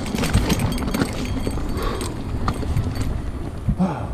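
Mountain bike rolling down a rocky trail: tyres crunching over loose stones and the bike rattling with irregular knocks, which thin out in the second half as the trail smooths.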